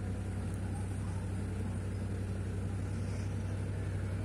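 Steady low background hum with a faint even hiss, no change in level.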